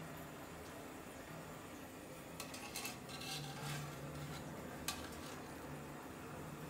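A low steady hum that fades in and out, with a few light clinks and ticks in the middle and one sharp click about five seconds in.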